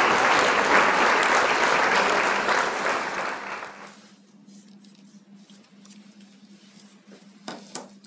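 Recorded applause, fading out about four seconds in. Then a faint steady hum, and near the end two short knocks as a Victorinox Picknicker folding knife is set down on a surface.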